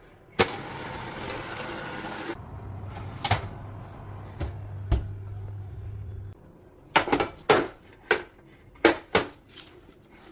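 Kitchen handling sounds: about two seconds of hiss, then a low steady hum for about four seconds with a few knocks, then a quick run of clicks and clatters near the end.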